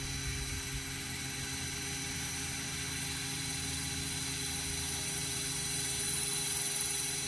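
Radio-controlled model helicopter's motor and rotor running steadily on the ground, a constant hum with a steady high whine, growing slightly louder about six seconds in.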